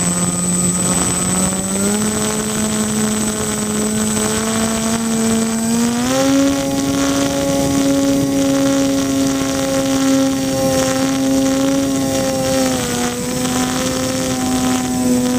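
Twin 1000KV brushless electric motors driving 10x6 propellers on a foam-board RC plane, heard from its onboard camera: a steady buzzing drone that steps up in pitch about two seconds in and again about six seconds in, then drops back twice near the end as the throttle is changed, over a rush of air.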